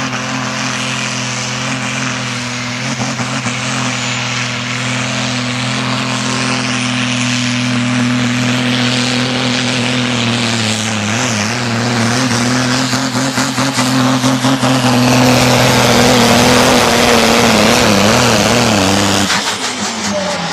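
Single-turbo diesel engine of a 3.6-tonne Super Sport pulling tractor running flat out under load as it drags the sled, a loud steady drone with a thin high whistle slowly rising in pitch. Near the end the engine note wavers and then drops away sharply as the throttle comes off.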